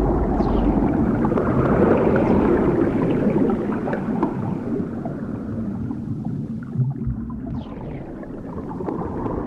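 Underwater ambience: a dense rushing wash over a low rumble, with high whale calls sweeping downward just after the start and again near the end. The wash fades gradually through the second half.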